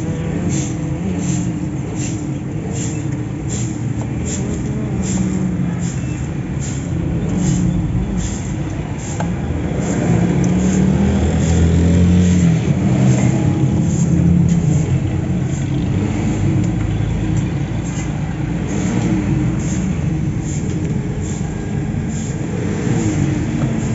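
A motor vehicle engine running, a low steady rumble that swells for a few seconds around the middle, with light regular ticks above it.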